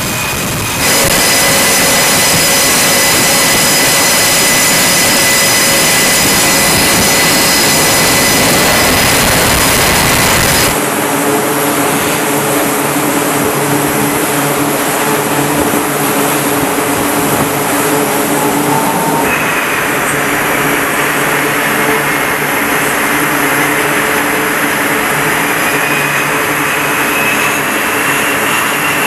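Twin General Electric F414 turbofan engines of a Super Hornet-family fighter running: a steady loud rush with high whining tones. It jumps louder about a second in and switches abruptly to a lower, humming engine sound about eleven seconds in.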